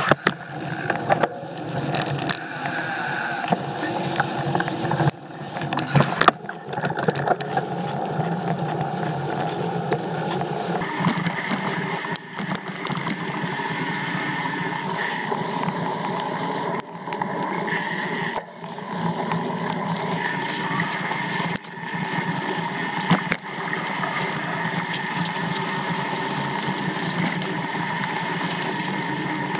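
Mountain bike descending a dry, loose dirt trail, heard from a camera mounted on the bike: tyres rolling and scraping over dirt with a steady rattle, broken by sharp knocks over bumps and roots.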